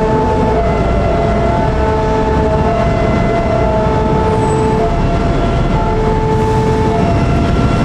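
Railway level-crossing warning alarm sounding a repeating pattern of steady tones that take turns about every second, over the loud, steady rumble of a train.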